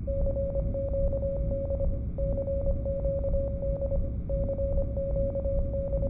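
Wireless Morse code signal: a steady mid-pitched tone keyed on and off in quick clicks, sending the CQD distress call, with a short break about every two seconds. A low steady rumble runs underneath.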